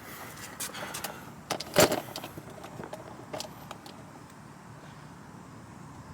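Pliers clicking and rattling against a plastic automotive fuse and the fuse box as the fuse is gripped and pulled out. There are several sharp clicks, the loudest about two seconds in, and the handling dies away in the second half.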